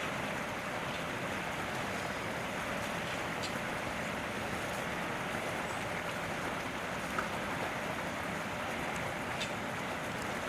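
Steady rushing outdoor background noise with a few faint ticks.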